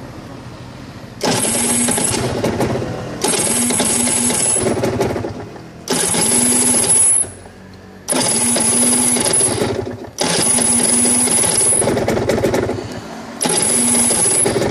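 RS 125 two-stroke motorcycle being cranked by its electric starter in six bursts of one to two seconds each, with short pauses between them, the engine not catching: a hard cold start.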